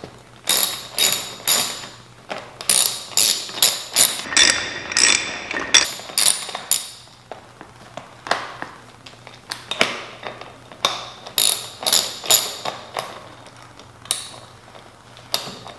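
Sharp metallic clicks in short runs of a few a second, with pauses between: a hand tool tightening the bolts of a dirt bike's front number plate.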